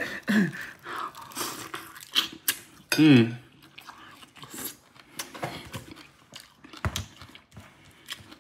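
Close-up eating sounds: a man chewing a mouthful of fish and rice eaten by hand, with small clicks and mouth noises throughout. A short murmur of the voice comes about three seconds in, and a single knock near seven seconds.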